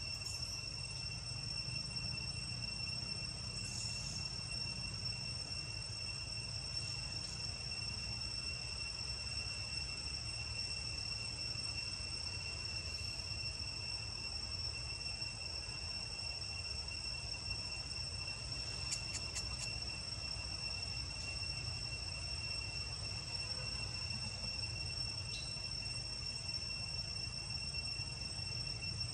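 Steady, unbroken high-pitched drone of forest insects, with a second tone an octave above it, over a low rumble. A few faint ticks come about two-thirds of the way through.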